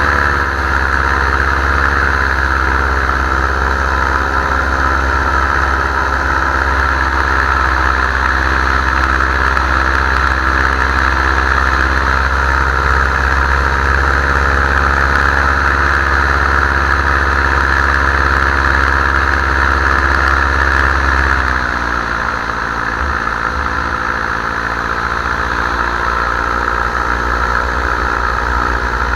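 Paramotor engine and propeller running steadily at flight power. About three quarters of the way through, the engine speed and pitch drop and it runs on at the lower setting.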